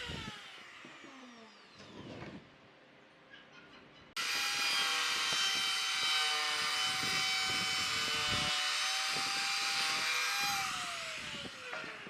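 Electric power tool on a woodworking job: the tail of a spin-down and a few light knocks, then about four seconds in it starts suddenly. It runs at a steady high whine for about six seconds, then winds down with falling pitch near the end.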